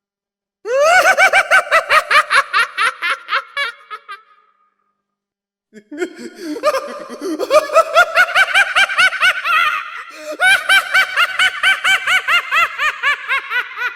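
Exaggerated, high-pitched clown laugh sound effect: a rapid "ha-ha-ha" at about five beats a second, in two bouts. The first lasts a few seconds, and after a pause of about a second and a half a longer one starts.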